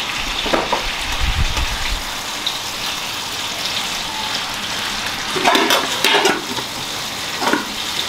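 Food sizzling steadily in a frying pan on the stove, with a few louder clatters of the pan or utensil, the clearest about five to six seconds in.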